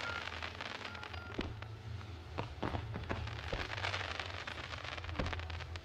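Aerial fireworks bursting in a dense barrage: rapid bangs and crackling of shells and comets, continuing with many sharp cracks, then falling away abruptly near the end.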